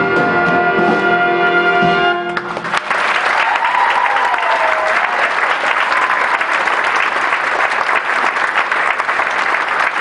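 Student jazz big band, trumpets, trombones and saxophones, holding a loud final chord that cuts off about two seconds in. Then the audience applauds and cheers.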